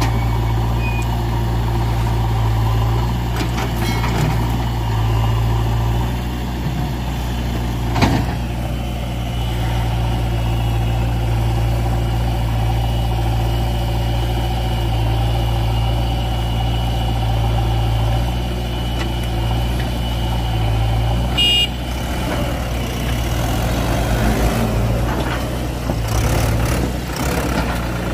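Mahindra 595 DI Turbo tractor's four-cylinder diesel engine running steadily. A sharp click comes about eight seconds in, and a short high beep a little past twenty seconds.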